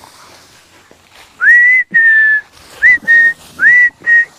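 A person whistling to call dogs: three two-part whistles, each a quick upward slide into a held high note.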